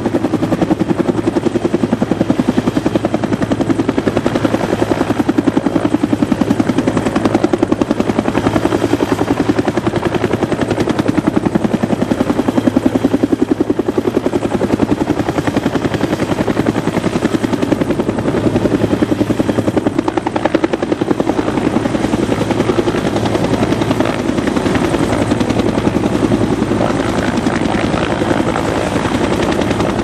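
Bell UH-1 "Huey" two-bladed military helicopter hovering low, its main rotor giving a steady, rapid blade beat over the turbine, while it hoists a casualty stretcher on a cable.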